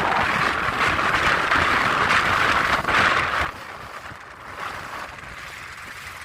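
Strong wind buffeting the microphone aboard a small boat on choppy water, with waves splashing. The noise drops off abruptly about three and a half seconds in, leaving a fainter steady hiss.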